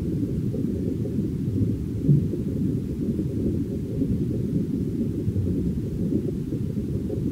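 Steady, deep, muffled rumble with nothing above the low end, swelling briefly about two seconds in.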